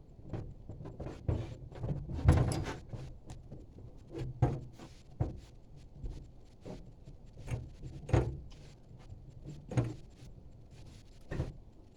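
Handling tools and fittings while fitting a propane regulator: irregular clicks and knocks, a few of them louder.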